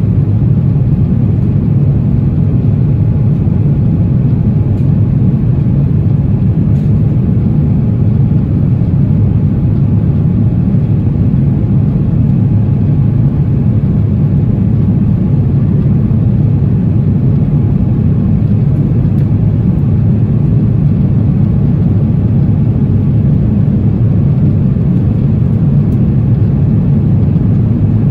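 Steady, loud cabin drone of an Airbus A350 in the climb after takeoff: the Rolls-Royce Trent XWB engines and the rushing air heard from inside the cabin, a deep even rumble with no change in pitch.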